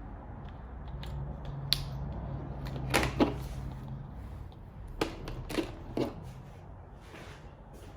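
Small sharp clicks and knocks of hand work on wiring parts, about six in all, with a low steady hum during the first few seconds.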